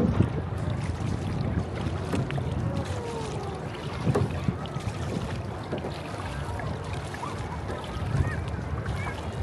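Wind buffeting the microphone over the wash of water at a beach, a steady rough rumble.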